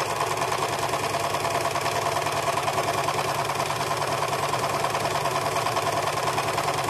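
Electric household sewing machine running steadily at speed, the needle stitching a long seam in a mesh curtain with a fast, even rattle.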